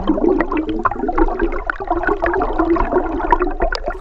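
Stream water churning and gurgling against a submerged camera's microphone, loud and full of small bubble pops.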